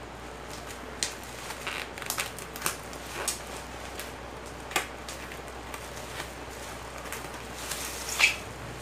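Scattered light clicks, taps and rustles of hands handling a rod tube case and its packaging, with one sharper click about eight seconds in.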